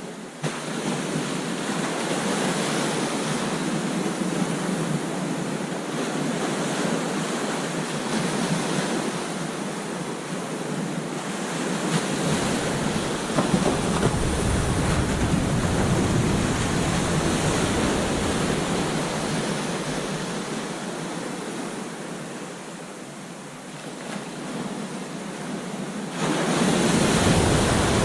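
Ocean surf breaking and washing up on a sandy beach: a continuous rush of water that swells and eases, dipping briefly a few seconds before the end, then surging louder with a deeper rumble as another wave breaks.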